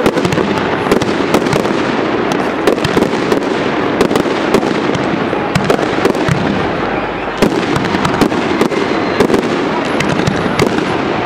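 Aerial fireworks display: shells bursting overhead in a dense, continuous run of bangs and crackles.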